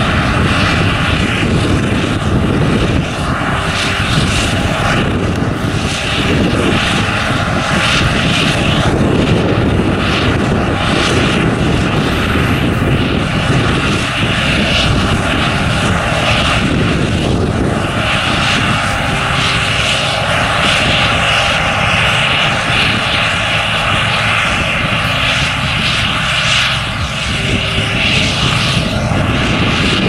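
Claas Lexion 530 combine harvester running steadily while cutting wheat: a continuous engine and machinery drone with a steady whine on top.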